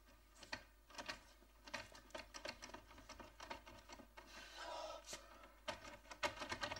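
Faint scratching and clicking of a hand working the metal handle of an old wooden door, with a brief faint voice sound about four and a half seconds in.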